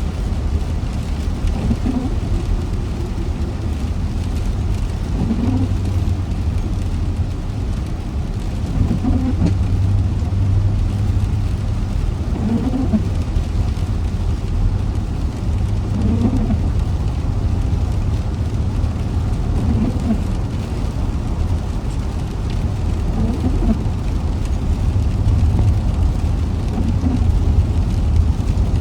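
A car driving in rain: a steady low road rumble with the hiss of rain, and a short, faint sound that comes back about every three and a half seconds.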